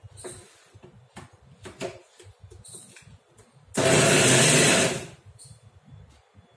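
Electric mixer grinder running in one short burst of about a second and a quarter, blending the cooled onion-tomato gravy mixture and water into a smooth paste. It is preceded by a few light knocks of the jar being handled.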